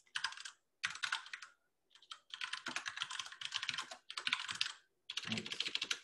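Fast typing on a computer keyboard, in several runs of keystrokes with short pauses between them.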